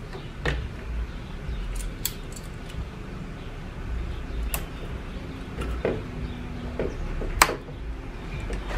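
Scattered small clicks and knocks of pliers working a hose clamp on the coolant return hose at a plastic coolant expansion tank, with one sharp click about seven and a half seconds in.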